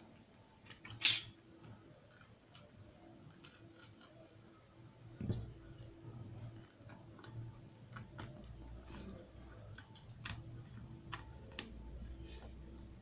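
Small tools and phone parts being handled on a work surface: scattered light clicks and taps, a louder click about a second in, and a dull thud about five seconds in, followed by a low hum.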